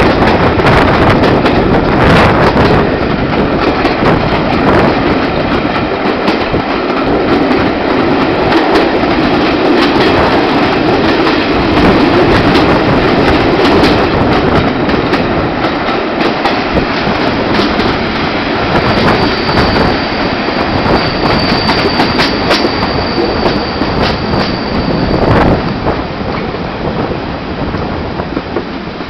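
Steam-hauled passenger train running, heard from a carriage window: the carriage wheels clatter over rail joints. A thin high wheel squeal sets in about two-thirds of the way through and stops a few seconds before the end.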